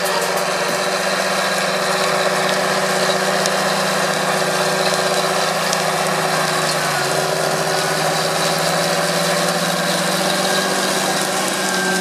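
John Deere 8330 tractor's six-cylinder diesel running steadily under load, pulling a Väderstad Carrier 625 XL disc cultivator through stubble, with a broad rushing noise from the discs working the soil.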